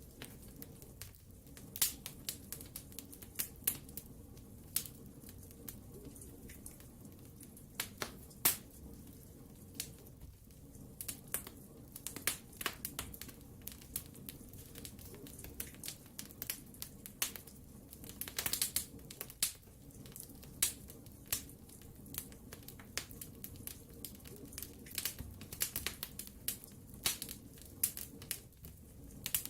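Wood fire burning in a fireplace, crackling with irregular sharp pops and snaps over a low steady rumble of the flames.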